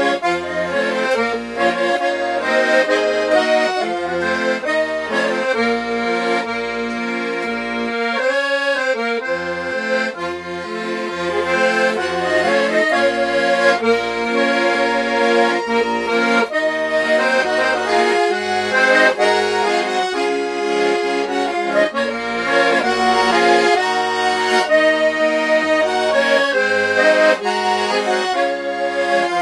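Hohner button accordion playing a traditional tune: a melody with chords over a steady, regularly pulsing bass, with a short break about eight seconds in.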